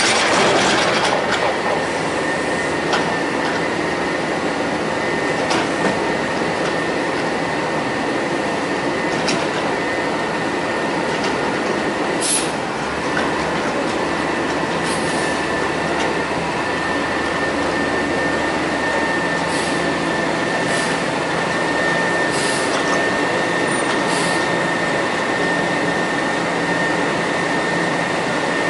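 CCC Amrep front-loader garbage truck's CNG engine and hydraulics running steadily, with a high steady whine, and a loud clatter at the start as the forks set the dumpster down. Scattered metal clanks from the forks and hopper follow.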